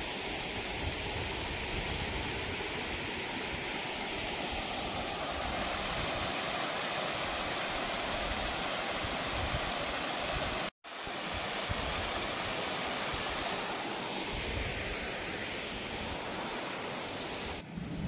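Steady rushing of waterfall and river water, an even hiss that breaks off for an instant about halfway.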